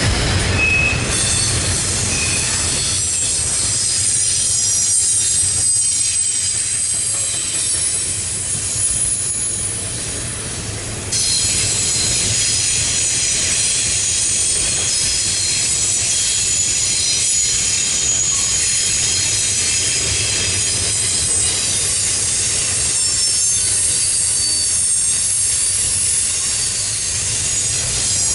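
CSX double-stack intermodal freight train rolling past, its wheels squealing on the rail in several high steady tones over a low rumble. The squeal fades for a few seconds and cuts back in suddenly about eleven seconds in.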